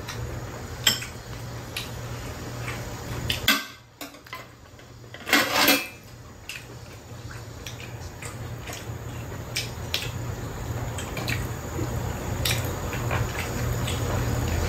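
Metal chopsticks and a spoon clinking against dishes and a metal tray table in scattered sharp clicks, with a louder clatter about five seconds in, over a steady low hum.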